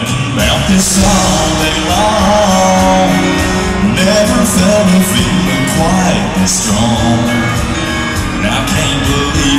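Live country band playing with a male lead vocalist singing over it, heard through the hall's reverberation.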